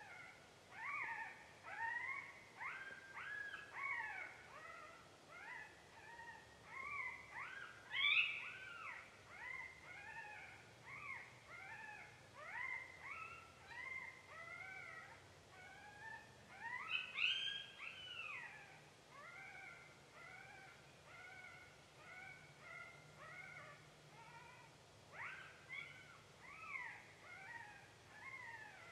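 Electronic predator call playing a recorded coyote pup distress sound: a steady string of short, high, arching whines and yelps, faint, with two louder cries about a third of the way in and just past halfway.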